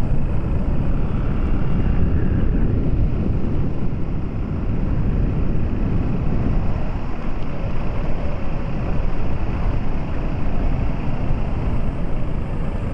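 Steady low rumble of a vehicle travelling on a road: engine, tyre and wind noise blended, with wind buffeting the microphone.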